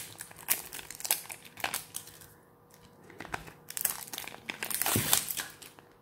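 A small cardboard lipstick box being opened and handled, with a run of crinkling and small clicks. The sound is busiest and loudest about four to five seconds in.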